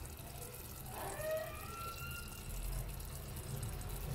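Sugar syrup bubbling in a small stainless steel pot over a gas burner, a steady low simmering sound as it boils down to a thick, thread-stage syrup.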